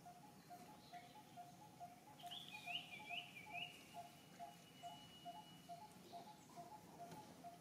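Faint outdoor ambience with a quick two-note call repeating steadily. About two seconds in comes a short run of high chirps, then a thin held whistle.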